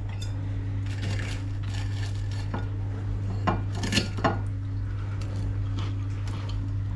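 Knife and fork clinking and scraping on a ceramic plate while cutting a poached egg on toast, with a few sharp clinks about three and a half to four and a half seconds in. A steady low hum runs underneath.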